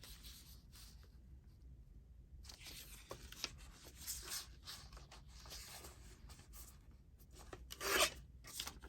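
Paper being trimmed and handled: soft rustling and scraping strokes, with a louder scrape near the end.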